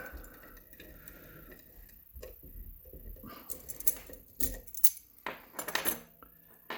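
Metal clicks and clinks of an Agent LS5 lock being handled and turned upside down in a vise, with several sharp clicks, the loudest about four and a half to six seconds in.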